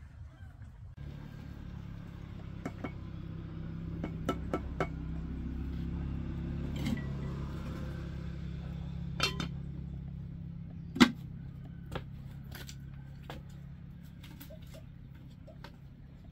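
A steady low hum that comes in suddenly, swells and slowly fades, with scattered sharp clicks and knocks, the loudest a single knock near the middle.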